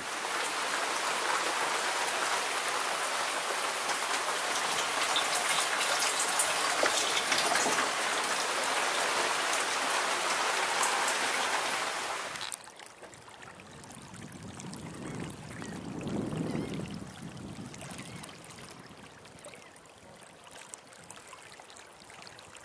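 Heavy rain falling on a sailboat's deckhouse roof and windows, heard from inside: a loud, dense, steady hiss. It cuts off suddenly about halfway, leaving a much quieter background.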